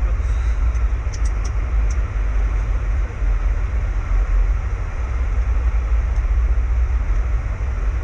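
Steady, loud rumble of airflow and engines inside a Boeing 737 flight deck on final approach, with a few faint clicks about a second in.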